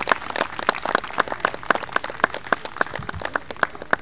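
A small outdoor audience applauding, with separate hand claps several times a second, stopping near the end.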